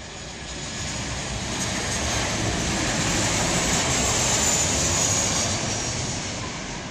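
Boeing 737 airliner's jet engines passing low as it comes in to land: a broad rushing jet noise with a thin high whine. It swells to its loudest about four to five seconds in, then fades away.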